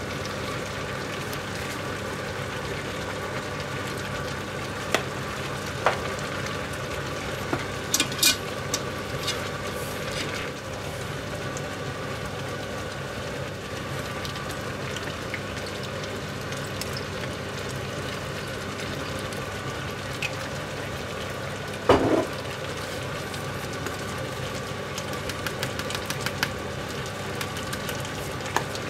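A meat and vegetable stew sizzling and simmering in a cast-iron Dutch oven, with a steady hum underneath. It is stirred with a wooden spatula, and a few short clicks and knocks come from it on the pot. The loudest knock is about three-quarters of the way through.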